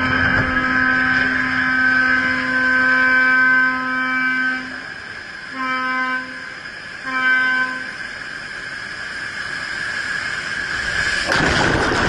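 Ship's horn sounding one long blast, then two short blasts, as a hull is side-launched into the water, a customary salute at a ship launch. A rushing noise swells beneath it in the second half.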